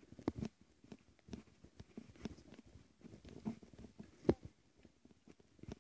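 Phone microphone being handled and brushed against clothing and hair: irregular soft knocks and rubbing, with one sharper knock about four seconds in.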